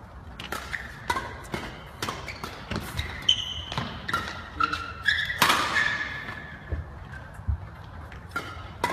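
Badminton rackets striking a shuttlecock in a fast defensive rally, sharp cracks about two a second, ringing a little in the hall. A few short squeaks are heard in the middle.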